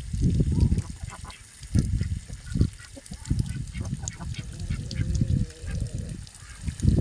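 Domestic ducks calling with bursts of low, raspy quacks, repeated at irregular intervals of about a second.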